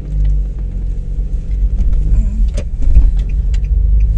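Car on the move: a steady low engine and road rumble, with light regular ticks near the end.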